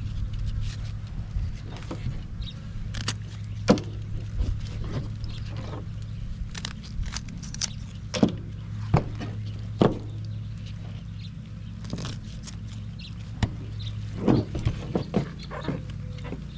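A steady low mechanical hum, with irregular clicks and knocks over it from handling work.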